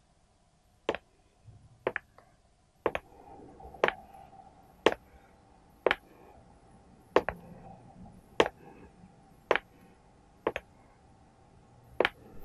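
Sharp single taps about once a second, evenly spaced at first and then slightly slower and less regular, over a faint steady room hum.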